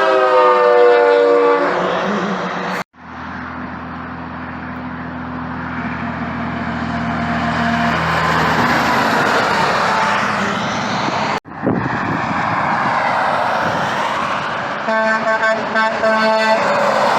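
Edited clips of heavy trucks passing on a highway. A multi-note air horn chord slides down in pitch as the truck goes by, then comes a steady diesel engine drone and road noise. Near the end a second horn chord sounds for about two seconds, and the sound cuts off abruptly twice between clips.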